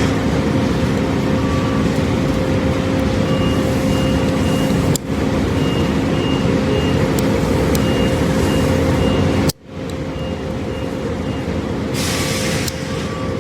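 Steady, loud machine-like hum and rumble, with short high beeps coming in small groups through the middle; the sound breaks off abruptly for a moment about two-thirds of the way through.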